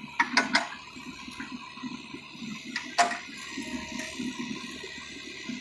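Kubota U50 mini excavator working: a steady rumbling run, with sharp metallic clanks twice about half a second in and once about three seconds in.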